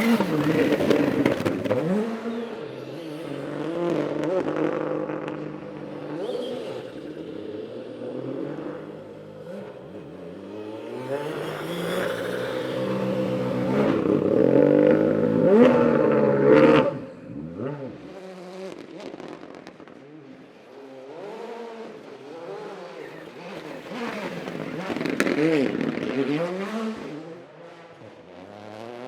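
Rally car engines at full throttle, revving up and down through rapid gear changes. The sound builds to its loudest about halfway through and drops away suddenly, with another burst of revving near the end.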